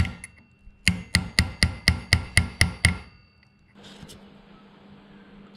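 Hammer striking a steel pin punch to stake the pinion nut's locking tab on a Landcruiser diff, locking the nut in place after torquing. A quick run of sharp, ringing metal blows, about four a second, which stops about three seconds in.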